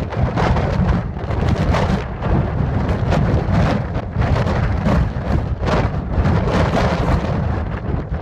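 Strong wind buffeting the microphone in a storm, a loud low rumble surging in irregular gusts.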